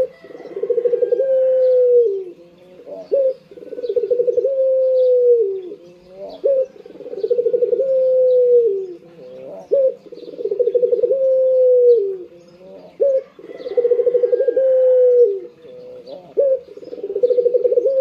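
Caged Barbary dove (puter) cooing over and over, about six coos roughly three seconds apart. Each coo is a short note, then a rolling trill, then a long drawn-out note that falls in pitch.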